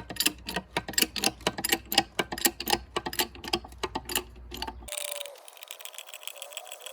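Hydraulic bottle jack pumped by hand as it presses a bronze hub out of a boat propeller: a quick run of metallic clicks, four or five a second, which stops about five seconds in, leaving a faint steady hiss.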